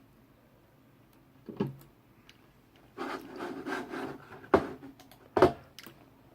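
Hands working Cat5 cable and its small twisted-pair wires on a hard surface: a knock about a second and a half in, a stretch of rubbing and rustling, then two sharp knocks.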